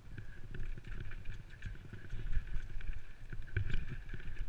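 Downhill mountain bike clattering over rock slabs and loose slate: tyres rumbling and the bike rattling, with a couple of heavier thumps in the second half.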